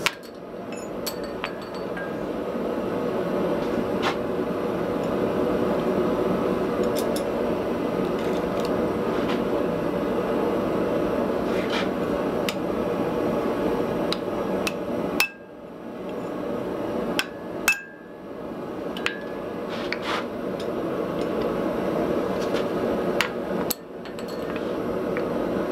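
Hand hammer striking red-hot iron on the anvil in separate blows, over a steady rushing noise.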